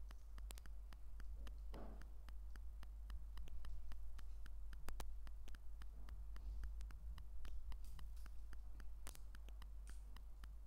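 Lego pieces being handled and pressed together: an irregular run of small plastic clicks and taps, several a second, over a faint steady low hum.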